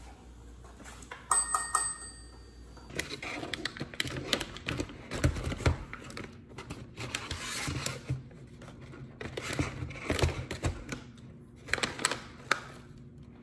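A short bell-like metallic chime rings about a second in. Then a plastic snack pouch of wasabi almonds is handled, crinkling and crackling in irregular bursts.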